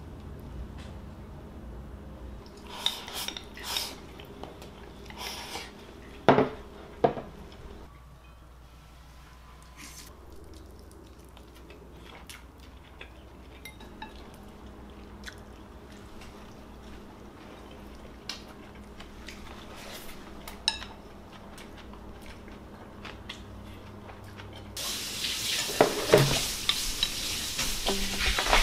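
Chopsticks clinking and scraping against ceramic bowls as stew is served onto rice and eaten, with a few sharper knocks about six to seven seconds in and light ticks after. Near the end comes a louder stretch of rustling and knocking.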